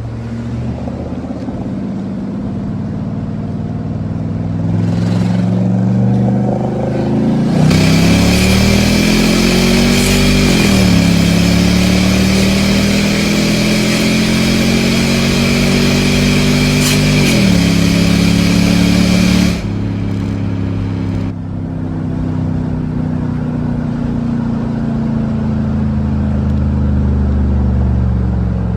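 Mercedes E-Class with a swapped-in 5.4-litre AMG V8, accelerating hard through the gears. The engine pitch climbs and drops sharply at an upshift about ten seconds in, climbs again and drops at a second shift, then slowly falls as the car eases off. A loud rushing noise accompanies the hardest pull and cuts off suddenly just after the second shift.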